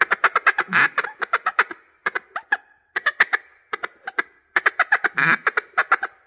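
Dux Pro Series acrylic single-reed duck call blown in a feeder call: runs of rapid clucking notes, about eight a second, broken by short pauses.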